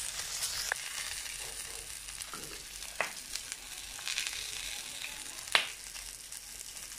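Food frying on a hot comal (griddle): stuffed chiles, foil-wrapped chorizo and pieces of pork sizzling with a steady hiss. A few sharp pops come through it, the loudest about five and a half seconds in.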